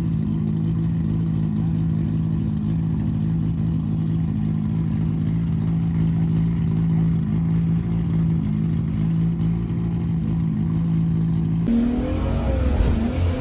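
Toyota 2JZ straight-six engine idling steadily, then revved near the end, its pitch rising and falling with each blip of the throttle.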